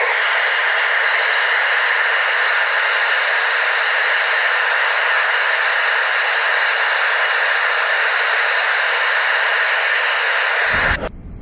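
Hot air blow dryer blowing steadily, an even rush of air that cuts off sharply near the end.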